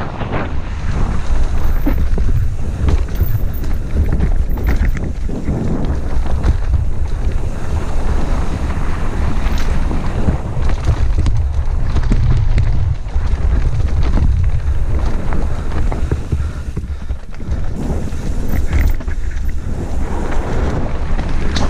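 Wind buffeting a helmet-mounted camera's microphone as a mountain bike descends a dirt singletrack at speed, with a constant low rumble from the tyres on the ground and scattered clatters from the bike over roots and bumps.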